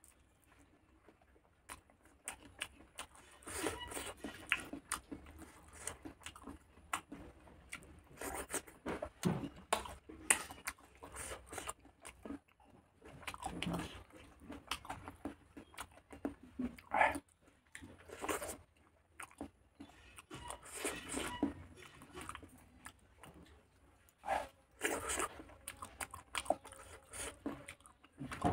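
Close-up eating sounds of a person chewing mouthfuls of pork curry and rice, in irregular bursts of wet, clicky mouth noise a second or two apart.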